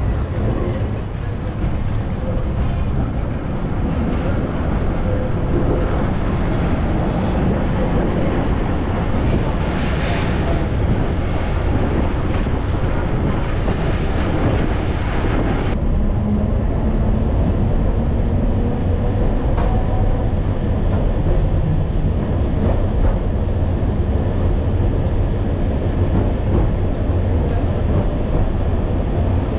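Vintage tram running on street rails: a steady low rumble of wheels and motors. About a third of the way in, a brighter, noisier rush of rolling noise cuts off abruptly, leaving a calmer rumble.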